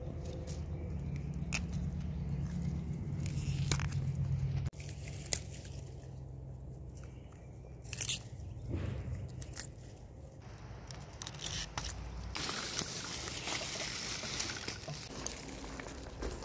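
Sugar snap pea vines being picked and pulled by hand: scattered crisp snaps of stems and pods, then a few seconds of leafy rustling near the end as the vines are gathered into a bunch.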